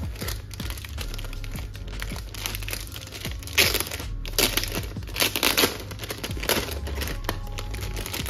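Plastic courier mailer bag crinkling as it is handled and opened, in a run of loud rustles and crackles from about three and a half to six and a half seconds in. Background music plays underneath.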